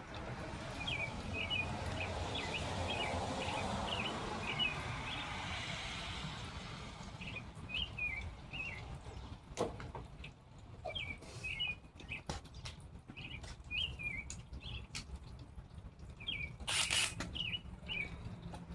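A small bird chirping in short, repeated squiggly phrases, over a steady hiss in the first several seconds. A few sharp knocks fall around the middle, and a short burst of noise comes near the end.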